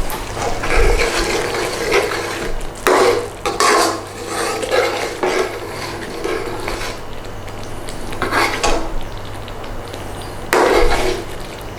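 A utensil stirring and scraping a creamy curry sauce around a metal pan in several short bouts, over a steady low hum.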